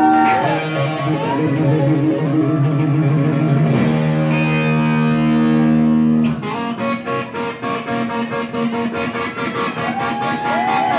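Live rock band's distorted electric guitar through an amplifier: held chords ring for about six seconds, then a fast chugging rhythm starts, about five strokes a second.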